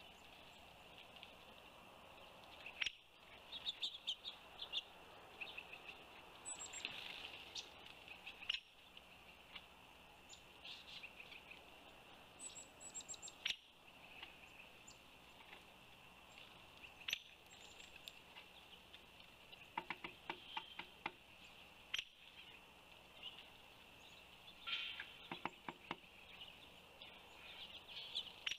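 Faint chirps and short high calls of small birds, scattered throughout over a steady outdoor hiss. Two rapid runs of clicking chatter come about twenty and twenty-five seconds in.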